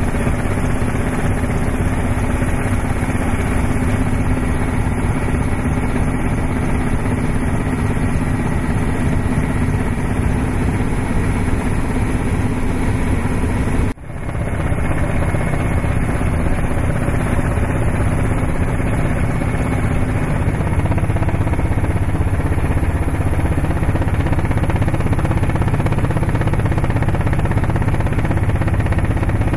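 Helicopter engines and rotor running steadily, heard from inside the cabin. About halfway through, the noise cuts out for an instant and then resumes.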